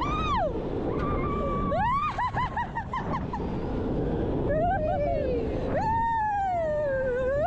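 Riders on a launched steel roller coaster whooping and screaming: several long cries, each rising and falling in pitch. Under them runs a steady rush of wind and the rumble of the coaster train.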